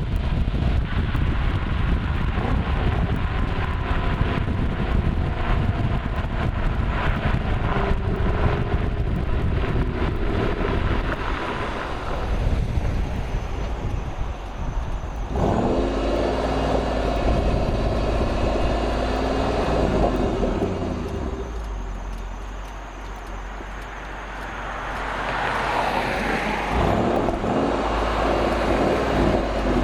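Ford Mustang Shelby GT500 V8 exhaust on the road, its pitch rising and falling with acceleration, gear changes and lifting off. Over the first dozen seconds, as the revs fall, it crackles with rapid pops. It drops quieter a little past the middle, then picks up again near the end.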